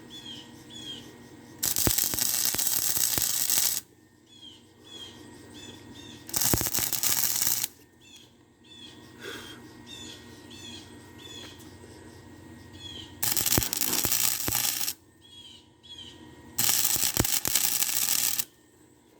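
Electric arc welding: four short bursts of steady crackling hiss from the welding arc, each one to two seconds long, starting and stopping abruptly as the welder tacks and runs short beads on steel pipe.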